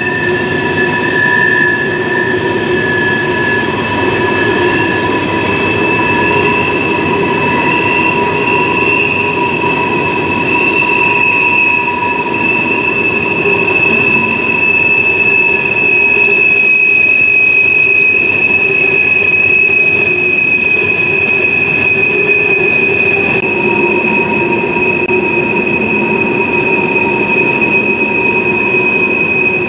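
Steel coal hopper cars rolling past with their wheels squealing in several steady, high, overlapping tones over the rumble of the train, the flange squeal of wheels rounding a tight curve. About 23 seconds in, some of the higher squeal tones drop out and others take over.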